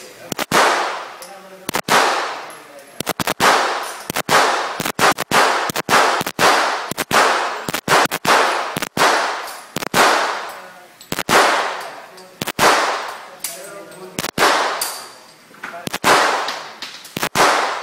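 A long string of semi-automatic pistol shots, roughly one to two a second and some in quick pairs, each sharp crack followed by a long echo off the walls of an indoor range.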